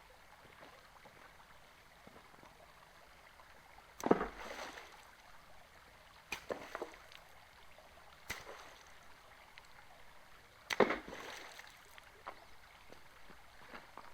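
A few sharp knocks and clatters of objects being handled over a faint steady background, the two loudest about four seconds in and near eleven seconds in.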